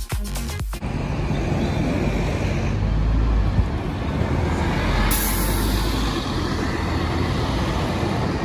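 Music stops under a second in, giving way to the diesel engine of a Scania Omnicity double-decker bus moving off from a stop, mixed with passing traffic including a lorry. A sharp hiss of released air comes about five seconds in.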